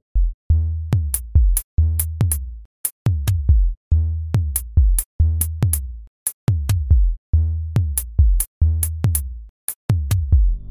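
Programmed drum-machine beat in the LMMS beat editor: deep sampled kick drums, each falling in pitch as it decays, with crisp closed hi-hat ticks in a repeating pattern.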